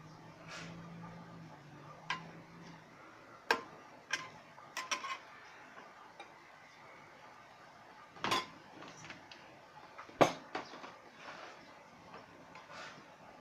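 Metal ladle stirring a curry in an aluminium pot, scraping and knocking against the pot's side in several sharp clinks, the loudest about ten seconds in.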